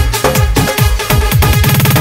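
Instrumental break of a Hindi folk-pop song with an electronic dance beat: a steady pounding kick drum under synth, building into a fast drum roll near the end.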